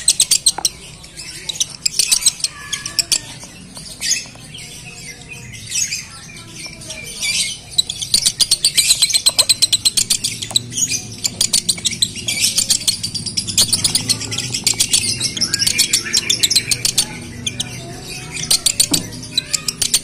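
Male Fischer's lovebird singing long, rapid runs of high, sharp chirps, the crackling 'konslet' chatter of a male in breeding condition. The runs are short and broken at first and grow long and almost unbroken from about eight seconds in.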